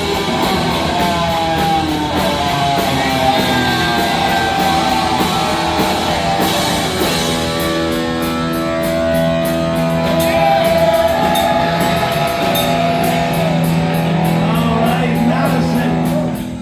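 Heavy metal band playing live: distorted electric guitar over fast, even drumming, with long held notes through the second half.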